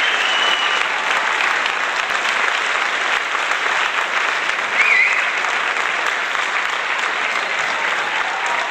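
Steady applause from a large crowd, a dense crackle of many hands clapping. Two brief high whistling tones rise out of it, one at the start and one about five seconds in.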